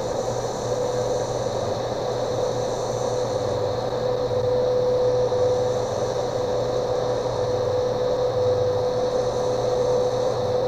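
Shortwave time-signal station WWV on 15 MHz, picked up by an RTL-SDR receiver and played through a speaker: a steady 500 Hz tone over a weak signal's hiss and static, with the station's low 100 Hz time code pulsing on and off about once a second.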